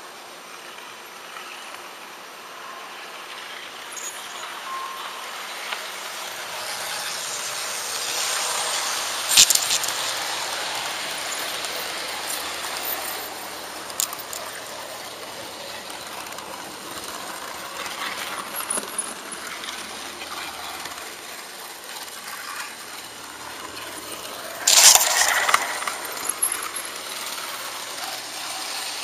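HO-scale model train running on its track, heard from a camera riding on the train: a steady rolling hiss of wheels on rail with small clicks, and two sharp, loud clatters as the wheels cross the track, one about nine seconds in and one near the end.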